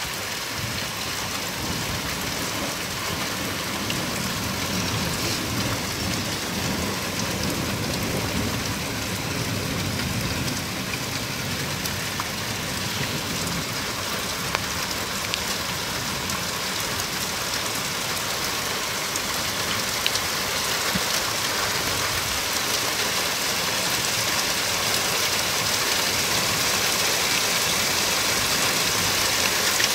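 Heavy thunderstorm rain pouring down in a dense, even hiss, much like applause, growing a little louder toward the end.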